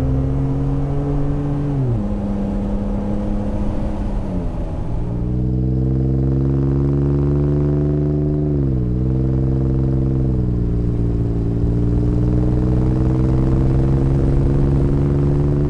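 Ford F-150 3.5L twin-turbo EcoBoost V6 through an MBRP XP Series 4-inch cat-back exhaust with a straight-through bullet muffler, accelerating hard. The exhaust note climbs through each gear and drops at every upshift. It is heard first from inside the cab, then from beside the exhaust tip, about five seconds in.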